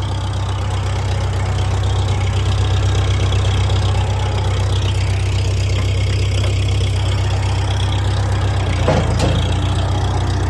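Engine idling steadily on a gravity-fed fuel supply rigged in place of a fuel pump, with a deep, even hum. A short knock comes near the end.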